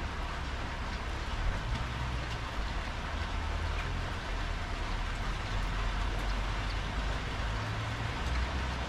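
Steady rain falling on a wet tiled patio, with scattered drops ticking close by and a low, uneven rumble underneath.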